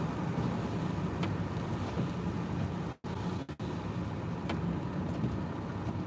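Steady low hum of a running car heard from inside the cabin. The sound cuts out to silence twice, very briefly, about halfway through.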